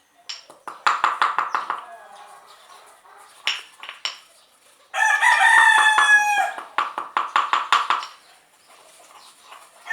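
A rooster crowing: one long call about five seconds in. Runs of quick clucks come before and after it.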